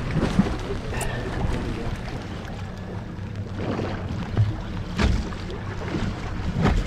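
Steady low hum of a boat's motor running, with wind and sea noise around the boat, and a few sharp knocks: about a second in, about five seconds in and near the end.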